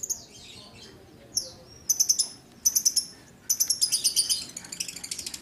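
Lovebirds chirping: a few groups of short, high-pitched chirps, then a fast, continuous run of chirps from about three and a half seconds in.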